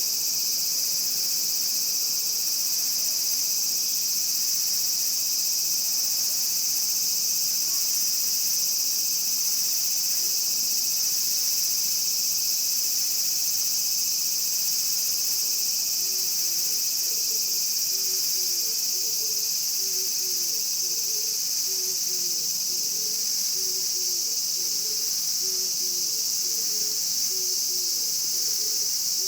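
Cicadas buzzing in a steady, unbroken high-pitched drone. From about halfway through, faint low-pitched chirps repeat about once a second underneath.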